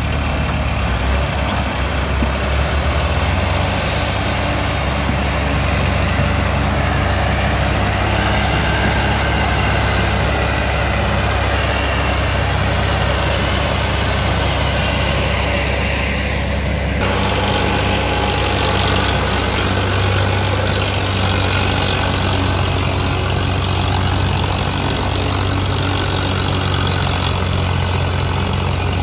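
Tractor diesel engine running steadily, a deep low drone with noise above; the sound changes abruptly about two-thirds of the way through, as at an edit.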